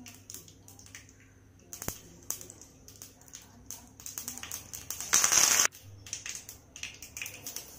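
Hot oil crackling in a frying pan, with scattered sharp pops of mustard seeds and urad dal spluttering. About five seconds in there is a brief loud sizzle, typical of curry leaves hitting the hot oil.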